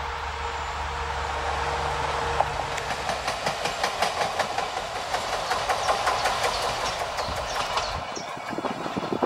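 630M diesel railbus passing: a steady engine drone, then, from about two and a half seconds in, rapid rhythmic knocking from the wheels, the pounding of a wheel flat.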